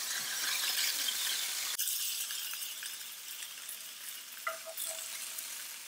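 Pork loin searing in hot vegetable oil in a cast-iron skillet, a steady sizzle. The sizzle drops suddenly about two seconds in and goes on more quietly, with a few light clinks of metal tongs against the pan near the end.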